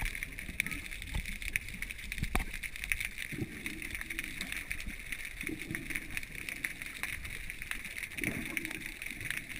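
Muffled underwater sound picked up by a submerged camera: a steady hiss with scattered small clicks, and three short, low, muffled sounds a few seconds apart.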